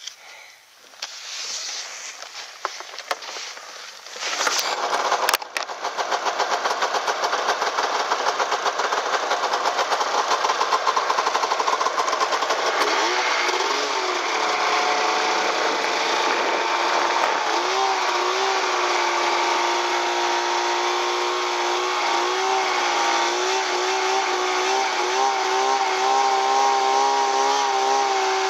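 Snowmobile engine starting about four seconds in, then running hard as the sled rides off through deep snow, its pitch rising and falling with the throttle.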